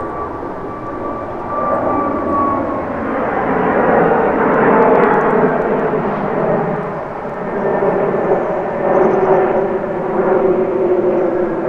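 Twin-engine jet airliner flying over, a loud jet engine roar that swells and eases a couple of times.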